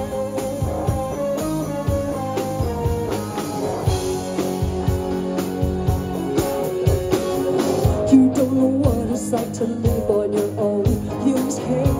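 A live rock band playing electric guitars and a drum kit, with a woman singing.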